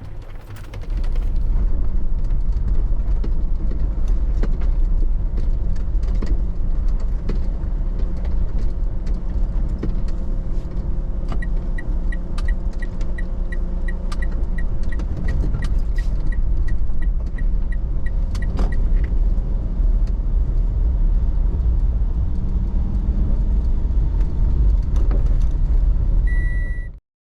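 Road and engine rumble inside a moving car's cabin. Through the middle stretch a steady run of short high beeps repeats at an even pace, and a single beep sounds near the end just before the sound cuts off suddenly.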